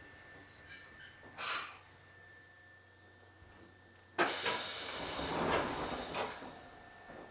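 Pneumatic door gear of an ex-Keikyu 1000-series commuter car working: after a quiet stretch with one short hiss, a sudden loud rush of air starts about four seconds in and fades over about two seconds, as the single-leaf sliding doors are worked by compressed air.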